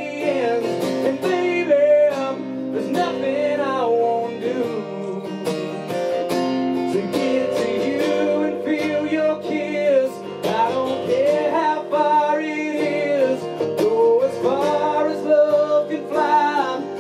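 Country ballad: a man sings a sliding melody over a strummed acoustic guitar, with sustained backing notes underneath.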